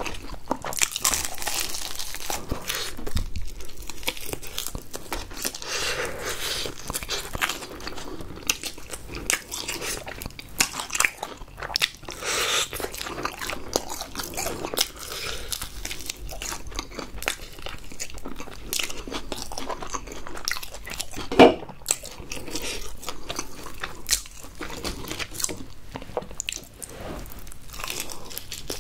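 Close-miked crunching and chewing of crispy seasoned fried chicken: repeated bites into the crackling batter, with chewing between them. One sharp crack stands out about two-thirds of the way through.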